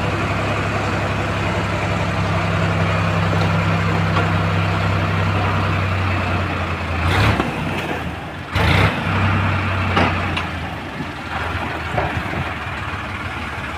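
Tractor diesel engine running steadily while its hydraulic tipping trailer raises the bed and the mud slides out, with a rough noisy layer over the engine hum. A few sharp knocks come about seven, eight and a half and ten seconds in, where the engine note briefly dips.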